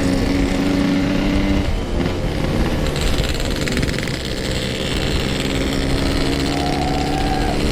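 Yamaha RX-King 135cc two-stroke motorcycle engines running steadily, with one engine's pitch rising slightly near the end.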